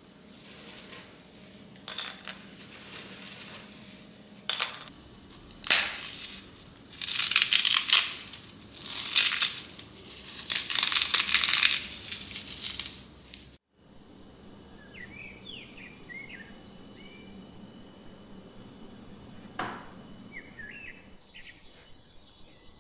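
Dry meringue kisses crushed and crumbled by hand, with plastic bags crinkling, in a series of loud crunchy bursts. About 14 seconds in, this cuts off and gives way to quiet birds chirping over a steady faint background.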